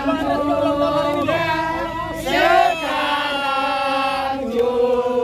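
A crowd of voices singing a birthday song together in long held notes.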